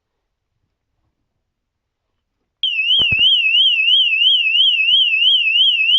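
Cruxer wireless bike alarm's siren going off about two and a half seconds in: a loud electronic tone warbling rapidly up and down, about four times a second. A couple of knocks come just after it starts.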